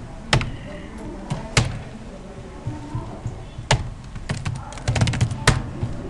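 Computer mouse and keyboard clicks: a few single clicks a second or two apart, then a quick run of keystrokes about four to five seconds in.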